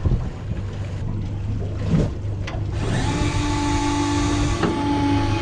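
Electric fishing reel's motor starts winding about three seconds in, a steady whine, over a low steady hum. It is cranking a heavy fish up from close to 400 m.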